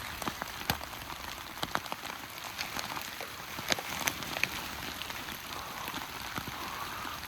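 Steady rain falling, with irregular sharp ticks of drops landing close by.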